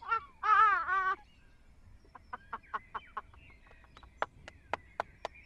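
A woman's short giggle in two quick high, wavering bursts near the start, followed by faint, evenly spaced ticking at about four a second.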